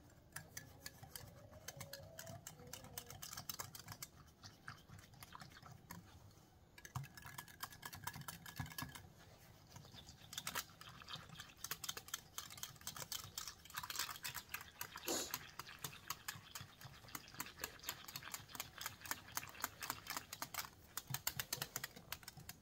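A spoon clicking rapidly and continuously against the sides of a glass measuring jug while stirring, dissolving stock cubes into just-boiled water to make chicken stock.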